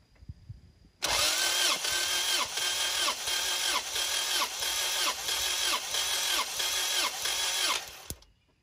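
Starter motor cranking a Honda H22 four-cylinder engine that does not fire, with a compression gauge fitted to cylinder two. It starts about a second in and pulses in a regular rhythm of about two beats a second. It cuts off suddenly near the end.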